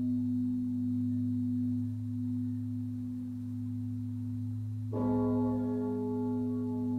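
Large bronze church bell (the 4,100 kg St. Petrus bell, strike tone G-sharp), heard close up in the belfry. Its deep hum rings on steadily, and about five seconds in the clapper strikes once, bringing back a brighter ringing that fades slowly.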